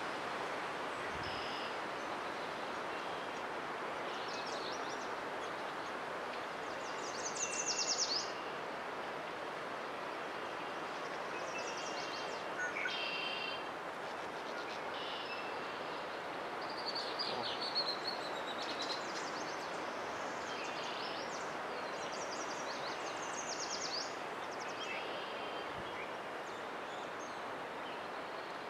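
Barn swallows twittering in short chirpy bursts, loudest about a quarter of the way in and again just past the middle, over a steady rushing background noise.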